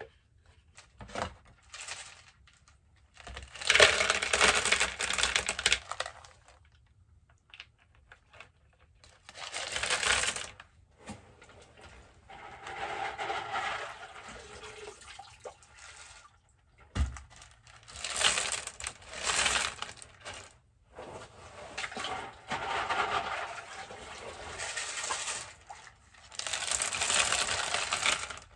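Leca expanded-clay pebbles poured into a plastic pot, clattering and rattling against each other and the pot walls in several separate pours of one to a few seconds each.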